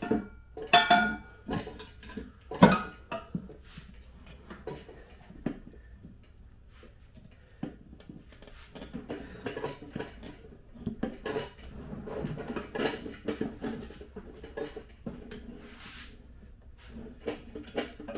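Metal clanks and knocks from a manual tire changer as an ATV tire is worked off its rim, with the tire bar scraping and rubber rubbing on metal. The loudest knocks come in the first few seconds; scraping and rubbing follow.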